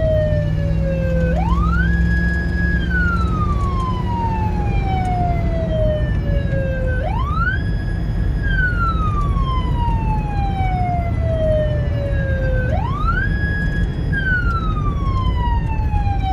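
American police car siren on a wail: it climbs quickly to its top note, holds it for about a second, then falls slowly for about four seconds, repeating about every six seconds. A steady low engine and road rumble runs under it.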